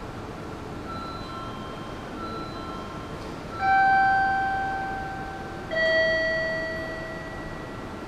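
Two-tone electronic station chime: a higher note about three and a half seconds in, then a lower note about two seconds later, each ringing and fading out. A few fainter short chime notes come before it, over a steady background hiss.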